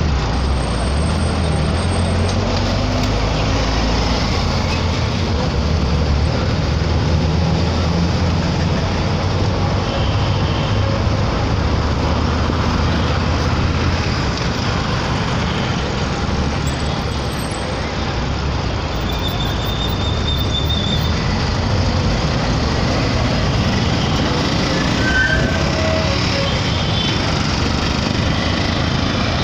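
City street traffic: a steady vehicle engine hum and road noise, with a few short high tones in the second half.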